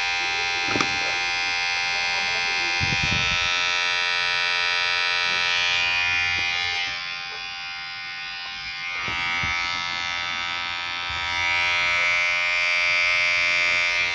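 Electric hair clipper running with a steady buzz. The buzz drops and softens for a couple of seconds around the middle, then comes back up.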